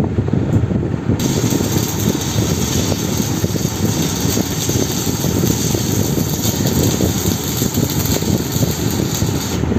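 Stick (manual arc) welding: the coated electrode's arc crackles and sizzles steadily as weld metal is laid on a damaged hydraulic cylinder part.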